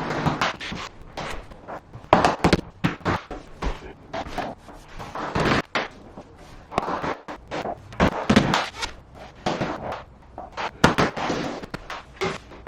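Cardboard box of vinyl click planks being opened and the planks pulled out and handled: irregular knocks, clatter and short scraping bursts.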